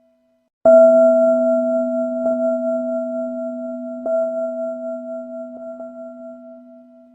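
A bell struck hard after a brief silence, ringing with a low hum and two higher overtones that fade slowly. It is struck again more softly twice and tapped lightly twice near the end, each strike renewing the ring.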